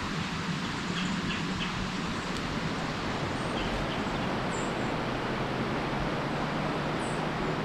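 Steady outdoor background noise with a few faint, high, short bird chirps.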